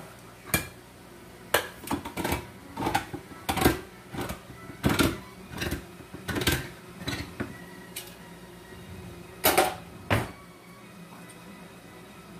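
Kitchen clatter: about a dozen irregular knocks, clinks and scrapes of cans, jars and utensils being handled, spread over the first ten seconds and then stopping, over a low steady hum.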